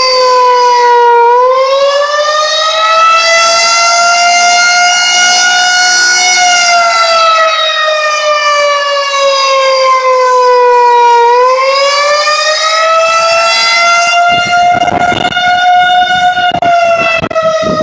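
Tornado warning siren sounding a loud, steady wail: one pitched tone with many overtones whose pitch slowly falls and rises, twice over. Short bursts of low rumbling noise come in near the end.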